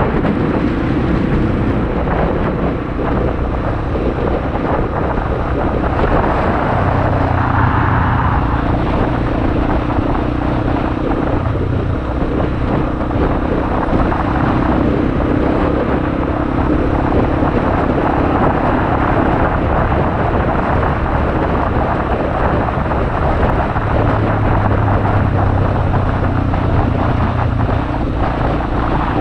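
Honda XR250 Motard's single-cylinder engine running while the bike is ridden, its note shifting with speed, under wind and road noise.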